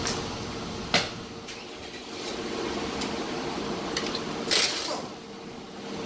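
Metal tools and parts clinking and knocking: two sharp knocks about a second apart, then a longer, noisier clatter near the end, over a steady hum.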